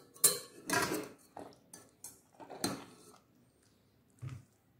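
Steel tongs clinking and scraping against a steel pressure cooker and plate as boiled raw mangoes are lifted out. There are a few separate metallic clinks with a short ring, the clearest just after the start, just under a second in and a little before three seconds in, and a faint knock near the end.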